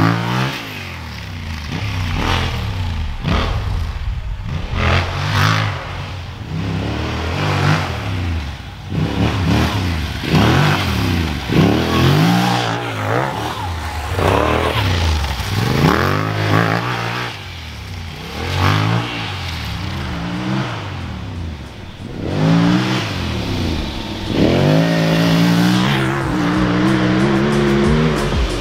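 Yamaha Ténéré 700's parallel-twin engine revving hard and pulling through the gears again and again. Its pitch climbs with each pull and drops back between them, and the last pull near the end is longer.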